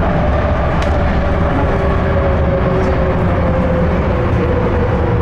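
Busan Metro Line 4 rubber-tyred light-metro train running through a tunnel, heard from on board: a loud, steady rumble of tyres and running gear, with a whine that slowly falls in pitch.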